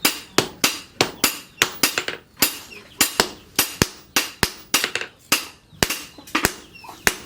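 Blacksmith's hammer striking metal on an anvil in a steady rhythm, about three ringing blows a second, as an axe head is forged.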